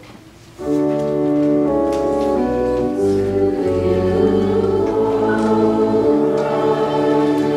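Church organ playing slow, sustained chords with a bass line, with the congregation singing along. This is the sung response to the Gospel reading in a Lutheran liturgy. The music starts about half a second in.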